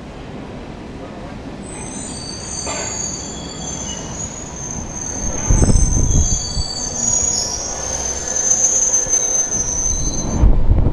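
London Underground train pulling into the platform: a rumble that grows louder as the cars come past, with several high-pitched squeals from about two seconds in and heavy low knocks about halfway. The squeal cuts off sharply near the end.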